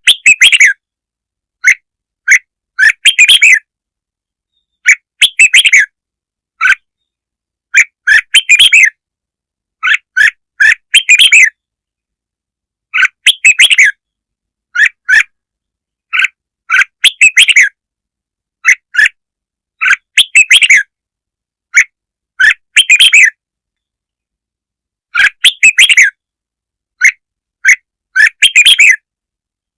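Red-whiskered bulbul song: short, bright chirping phrases in quick clusters every second or two, with dead silence between the clusters. It is a call recording played to lure bulbuls (kích mồi).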